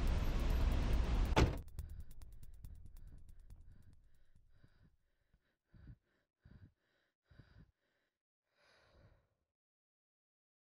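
A loud rushing noise cuts off with a thud about a second and a half in. Then a woman gives several short, soft sighs and breaths, about one a second.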